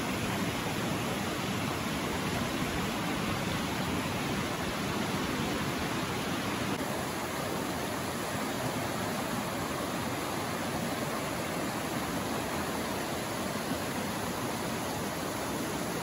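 Mountain stream rushing over rocks in small rapids, a steady even rush of water.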